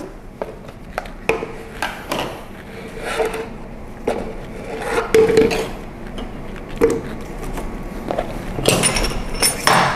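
Scattered knocks and clinks of a plastic blender jar, its lid and ingredient containers being handled on a kitchen counter, with a denser clatter near the end as chilies are set on a plastic cutting board.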